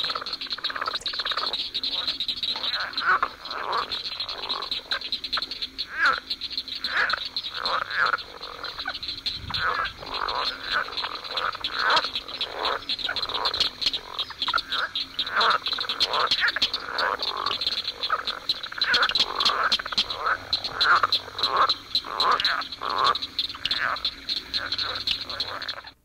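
Leopard frog (Rana pipiens) mating calls: a rapid run of short, rattling croaks, several a second, over a steady high-pitched background chorus.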